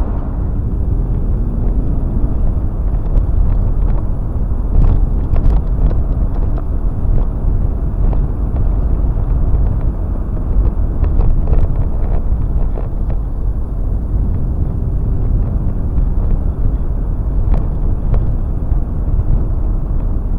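Steady low road rumble of a vehicle being driven, heard from inside, with a few short knocks and rattles in clusters about 5, 12 and 17 seconds in.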